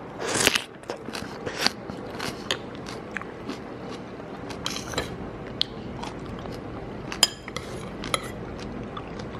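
Close-up eating sounds: a person chewing crisp pickled Thai eggplant and working a spoon through a bowl of soup and rice. Scattered small clicks and crunches run throughout, with a louder rush about half a second in.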